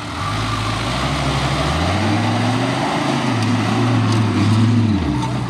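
Mercedes-Benz G-Class off-roader's engine revving under load as it climbs a steep dirt slope. The pitch rises about two seconds in, then goes up and down with the throttle.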